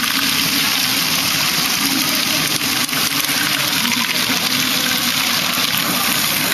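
LEGO Great Ball Contraption running: a steady, dense clatter of many small plastic balls rolling and dropping through the modules, with the LEGO motors and gears that lift them.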